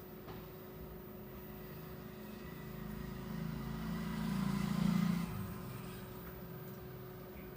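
A motor vehicle engine that grows louder over a few seconds, peaks, then drops away sharply about five seconds in, like a vehicle passing close by. A faint steady hum runs underneath.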